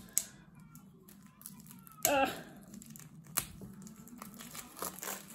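Plastic seal being picked at and peeled off the rim of a small round metal game tin, with a few light clicks.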